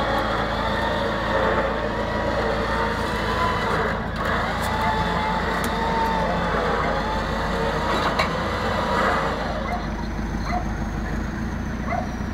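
Tow truck winch pulling a car up the loading ramp by its chain: a steady engine hum with a wavering whine over it, which stops about nine seconds in.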